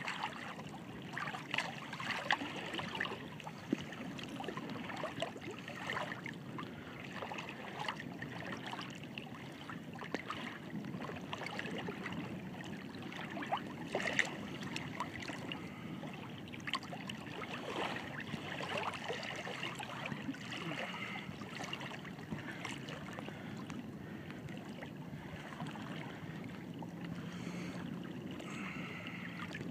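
Small waves on choppy open water lapping and splashing close by, with a steady wash and scattered short splashes and trickles.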